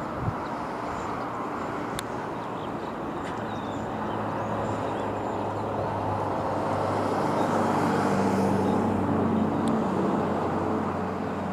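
A motor engine hums over a steady wash of wind and sea noise. It grows louder toward its peak about eight seconds in, then eases off.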